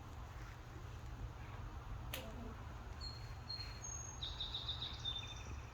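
A crow hiccupping once, about two seconds in: a sharp click that slides down into a short low note. In the second half come thin high bird chirps and a quick trill, over a steady low hum.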